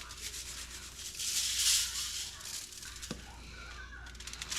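Salt shaken from a shaker and pattering onto the skin of a whole striped bass, in uneven rattling bursts, loudest about a second in.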